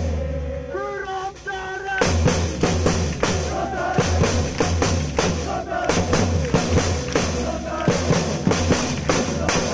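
Supporters' snare and bass drums beating a fast chant rhythm, with fans singing a chant. The drums thin out and the low beats stop just after the start, leaving the voices more exposed. The full drumming comes back in about two seconds in.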